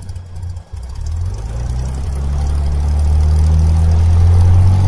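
Cessna 175C's geared Continental GO-300 six-cylinder engine being throttled up from idle to run-up power. It grows louder over about two seconds, then holds a steady drone.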